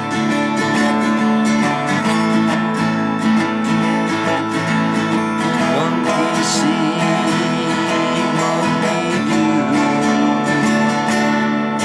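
Twelve-string acoustic guitar strummed in a steady rhythm.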